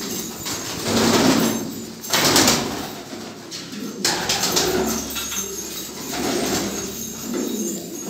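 Domestic pigeons cooing, with a few short bursts of wing flapping about a second in, just after two seconds and around four seconds.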